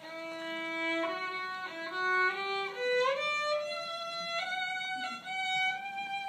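Solo violin playing a slow melody of long held notes that climbs in pitch, sliding up between notes about three seconds in.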